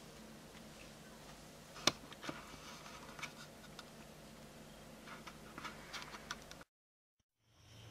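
Faint background with scattered light clicks and ticks, a sharper click about two seconds in, then a sudden cut to dead silence near the end.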